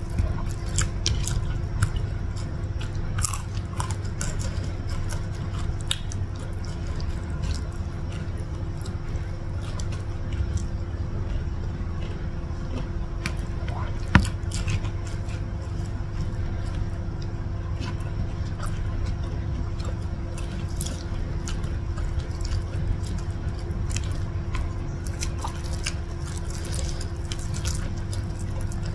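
Close-miked eating by hand: chewing with wet mouth clicks and small crunches while eating nasi lemak with fried chicken, over a steady low hum. One sharp click stands out about halfway through.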